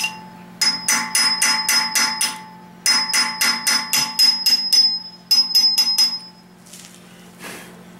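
Hammer tapping a punch in quick runs of ringing metal-on-metal strikes, about four to five a second, driving a small soft plug into the front of a 5.7 V8 engine block. The strikes come in three bursts and stop about six seconds in, once the plug is seated.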